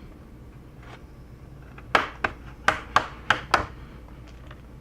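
Plastic retaining clips of an HP Envy 17T laptop's display assembly snapping loose as a spudger is run along the seam: six sharp clicks in quick succession, starting about two seconds in.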